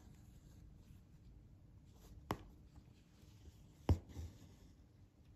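Needle and embroidery thread drawn through fabric stretched taut in an embroidery hoop: faint rubbing with two sharp ticks about a second and a half apart, the second followed by a smaller one.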